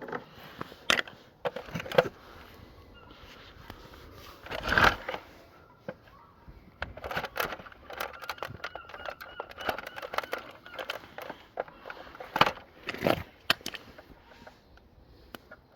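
Hard plastic of a remote-control car's handheld controller clicking, knocking and cracking as it is handled and broken, in irregular rapid clicks with a few louder knocks, one about five seconds in and two close together near the end.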